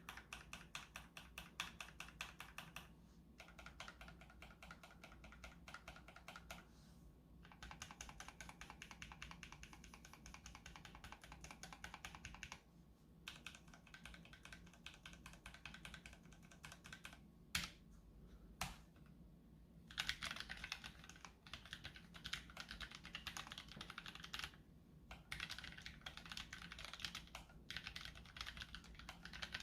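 Keychron K3 slim low-profile keyboard with optical red linear switches being typed on in fast runs of keystrokes. There are short pauses and a couple of single key presses around the middle, and the typing gets louder over the last third.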